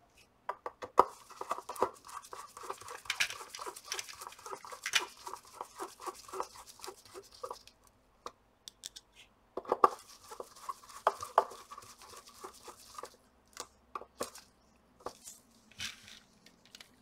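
Hand screwdriver driving the large screws through a circuit board into the metal heatsink: two runs of rapid, rhythmic scraping clicks as the screws turn, the second starting a little past halfway, then a few scattered ticks.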